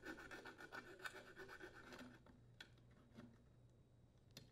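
Metal file rasping faintly back and forth on the edge of a hole just drilled in a copper water pipe, deburring its rough edges. The rasping fades out after about two seconds, followed by a few light ticks.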